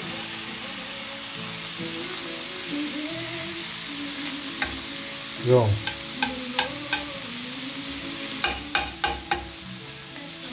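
Sliced vegetables sizzling steadily in a frying pan on a gas stove. A knife knocks several times as goat-cheese spread is scraped from a jar into the pan: a few clicks around the middle and four quick ones near the end.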